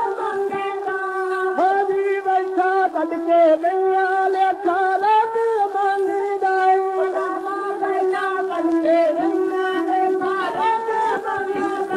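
Music from an old 78 rpm shellac record of a Punjabi devotional song: an ornamented, gliding melody over a steady drone.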